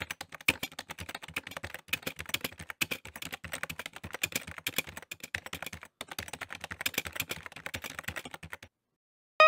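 Fast typing on a keyboard: a rapid run of keystroke clicks with a few short pauses, stopping shortly before the end.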